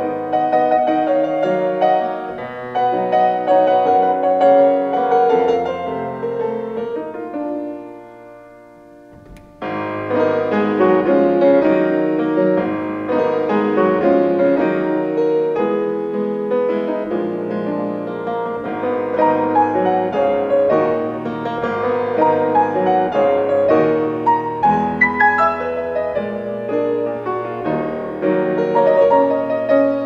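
Steinway & Sons grand piano played solo, a flowing melody with chords. About eight seconds in the notes fade almost away, then the playing comes back suddenly and fuller near ten seconds in.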